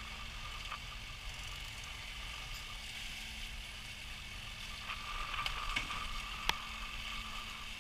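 Faint, muffled mechanical clicking and whirring of a fishing reel being cranked against a hooked fish, over a steady low hum, with a few sharper clicks about five to six and a half seconds in.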